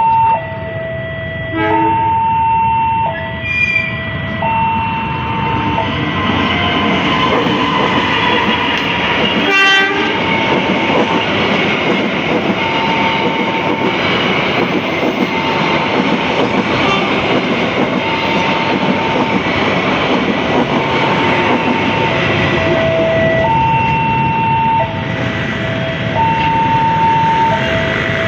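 Level crossing alarm sounding a two-tone chime, switching between a higher and a lower tone about every second and a half, while a train passes with a loud rumble and wheel clatter building from about six seconds in. A short sharp horn toot sounds near ten seconds.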